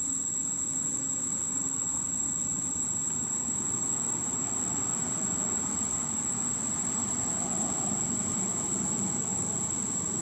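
Steady high-pitched insect drone that holds one pitch without a break, over an even low background rush.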